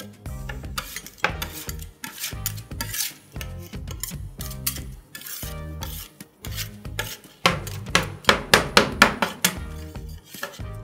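Metal spatulas scraping and chopping a half-frozen ice cream mixture on a stainless-steel cold plate, in repeated rasping strokes as the base freezes into chunks. A quick run of strokes about three-quarters of the way through is the loudest.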